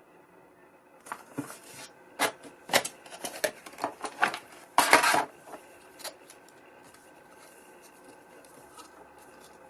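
Unboxing handling noise: a run of sharp clicks, taps and rustles starting about a second in, the loudest a scraping rustle around five seconds, then fading back to faint room tone.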